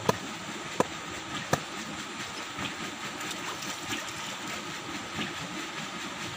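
Three sharp wooden knocks about 0.7 s apart in the first second and a half, as the bamboo-slat fence of a fish trap is struck while being set into the riverbed. Then water sloshing and splashing around men wading, over a steady hiss.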